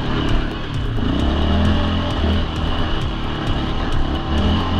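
Yamaha Raptor ATV's single-cylinder engine pulling away and revving up through its gears about a second in, then revving again near the end.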